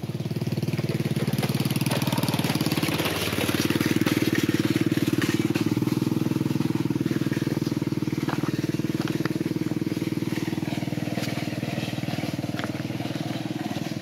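Motorcycle tricycle's small engine running steadily, growing louder a few seconds in and slowly easing off toward the end.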